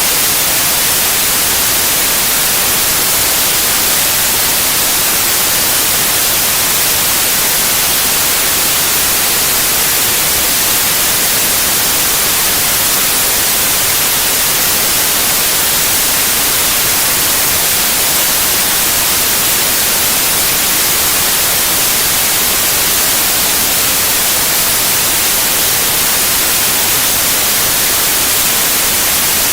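Steady white noise: an even, unchanging hiss across all pitches, strongest in the treble.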